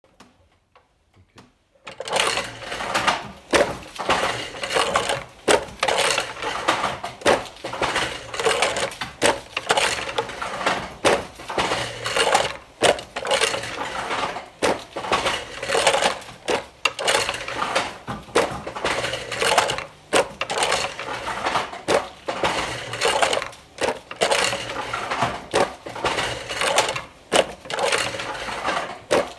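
Wooden fly-shuttle handloom being woven at a steady pace: the shuttle is thrown back and forth across the race and the beater knocks home, making a rhythmic wooden clacking of about one or two sharp strikes a second. The clatter starts about two seconds in.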